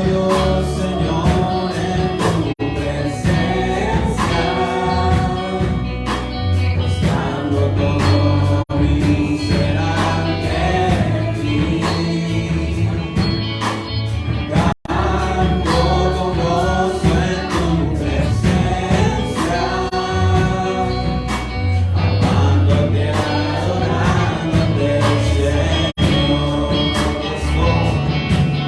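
Gospel worship music: a band with bass plays under a group of voices singing. The sound cuts out for an instant a few times, most deeply about halfway through.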